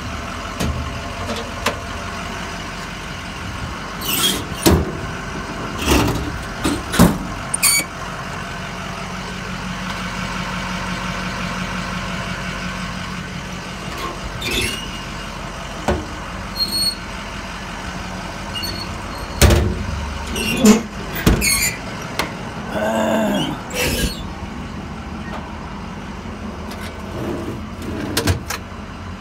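Metal toolbox drawers and compartment doors on a utility truck body being opened and shut: scattered sharp clacks and latch clicks and one short squeal, over the steady idle of a 6.0 Power Stroke V8 diesel.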